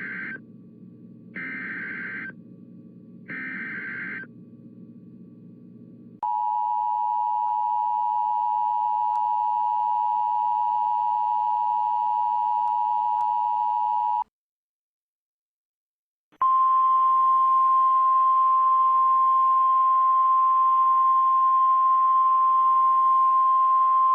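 Emergency Alert System tornado-warning tones: the tail end of three short screeching SAME header data bursts over a low hum, then the two-tone EAS attention signal held steady for about eight seconds. After about two seconds of silence, the single steady NOAA Weather Radio warning alarm tone starts and keeps going.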